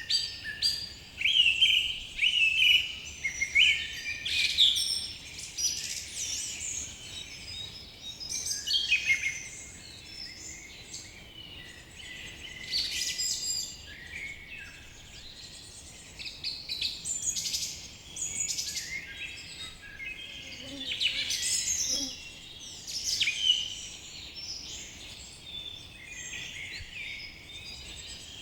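Several songbirds singing and calling at once in a forest, a dense mix of chirps, trills and whistles over a faint steady background hiss.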